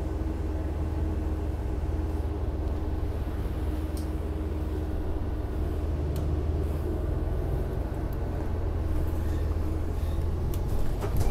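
Inside a SEPTA Market-Frankford Line el train car rolling slowly through a rail yard: a steady low rumble with a hum in the first few seconds and a few sharp clicks.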